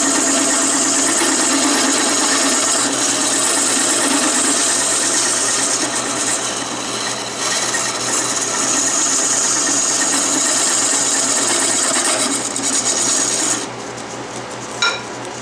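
Wood lathe spinning a wooden handle blank while a hand-held turning tool cuts along it: a loud, steady scraping hiss of the cut over the lathe's hum. The cutting stops suddenly near the end, leaving the lathe running, and a short metallic clink follows.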